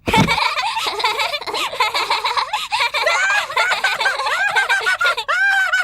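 Cartoon children's voices giggling and laughing, several voices overlapping.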